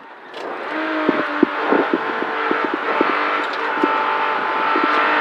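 The air-cooled flat-six of a 1973 Porsche 911 heard from inside the cabin, building from quiet over about the first second and then pulling hard at fairly steady revs. Scattered sharp clicks and knocks sound over it.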